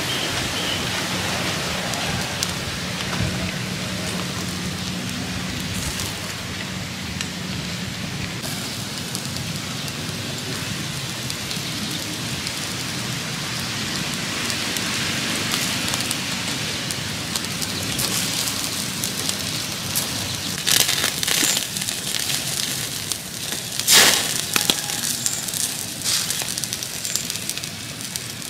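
Open wood fire burning under birds roasting on sticks: a steady hiss, joined about two-thirds of the way through by sharp crackles and pops, with one loud pop near the end.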